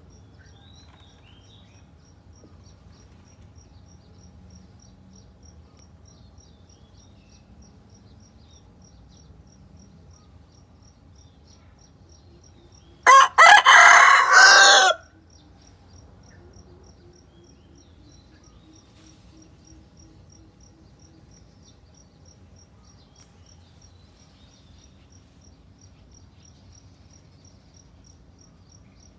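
A chicken crowing once, a loud call of about two seconds that bends in pitch, about halfway through; otherwise only faint background.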